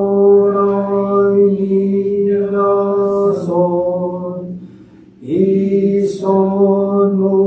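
A single male voice chanting a Buddhist sutra on a steady monotone in long, drawn-out syllables, stopping for a breath about five seconds in and then carrying on at the same pitch.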